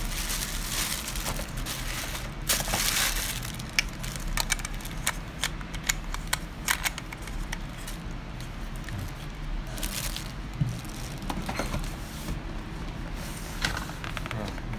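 Camera packaging being handled: plastic and paper rustling and crinkling, with many sharp clicks and taps scattered throughout.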